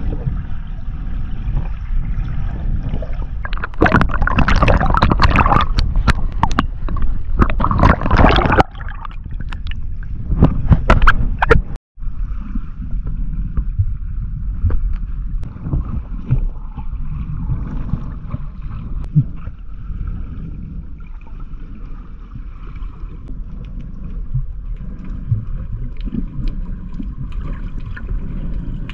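Water heard through a camera's underwater housing: a steady muffled rushing rumble, with louder splashing surges from about 4 to 9 seconds in and again around 11 seconds. It cuts out for an instant at about 12 seconds.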